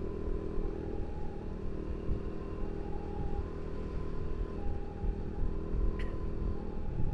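Motorcycle engine and wind rumble while riding, with a fainter two-tone hi-lo emergency siren switching between a higher and a lower pitch about once a second. A single short sharp click comes about six seconds in.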